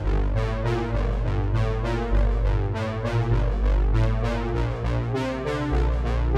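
Background music: synthesizer and keyboard notes over a strong bass line.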